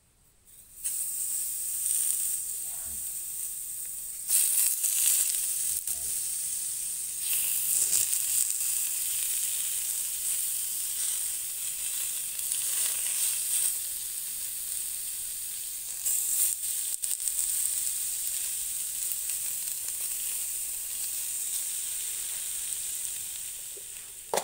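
A steady sizzling hiss like food frying in hot fat. It starts suddenly about a second in and swells louder a few times.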